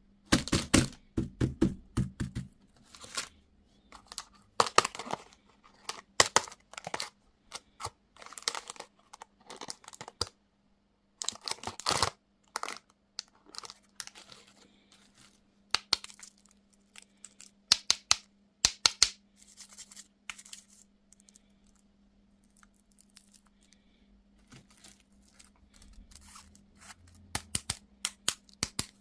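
Crinkly candy packaging being torn open and crumpled, in irregular bursts of sharp crackling, with a quieter pause about two-thirds of the way through.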